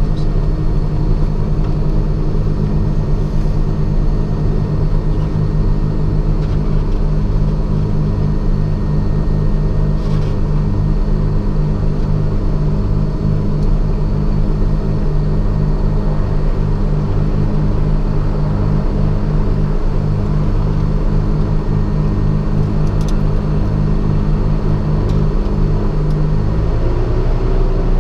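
The twin Continental 520 piston engines of a Cessna 414 Chancellor, 325 hp each, running steadily at takeoff power with a loud, even drone. The note changes slightly near the end.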